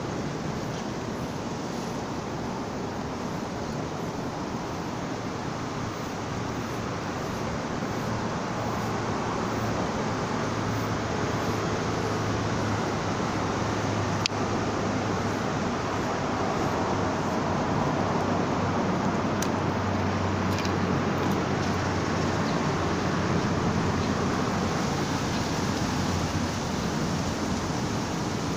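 Steady, rumbling outdoor background noise with no distinct source, slowly growing a little louder, with one short click about halfway through.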